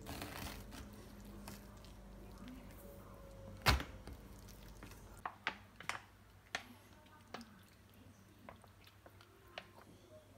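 Kimchi being cut with a kitchen knife on a plastic cutting board. There is one sharp knock about four seconds in, then a scatter of faint clicks and taps.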